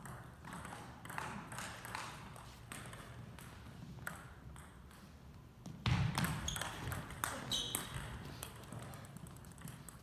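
Table tennis rally: the ball clicking sharply off the rackets and table in quick succession, densest from about six seconds in, with a heavier thump as the fast exchange starts. Faint voices in the hall in the first couple of seconds.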